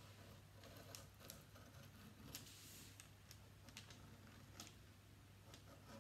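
Near silence: a pen scratching faintly as it traces over a drawing on paper, with scattered light clicks and one brief, slightly louder scratchy stroke a little over two seconds in. A steady low hum lies underneath.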